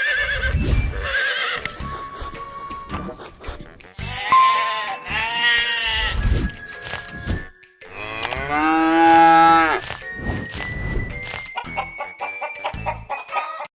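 Background music with a steady beat, with long farm-animal calls laid over it, one a little after four seconds in and a louder one around eight seconds in.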